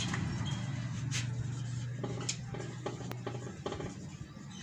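Marker pen strokes on a whiteboard while words are written: short scratches, taps and faint squeaks. Under them a steady low hum that stops about three and a half seconds in.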